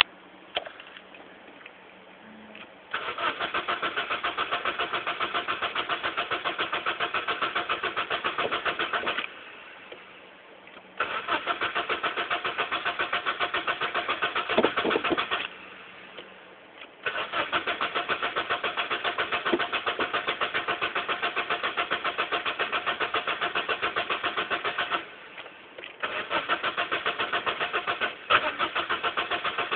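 Honda Accord 1.8 VTEC engine cranking on its starter motor in four long attempts of several seconds each with short pauses between, turning over evenly without catching: a no-start.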